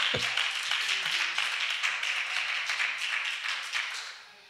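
Congregation clapping and applauding, dying away near the end.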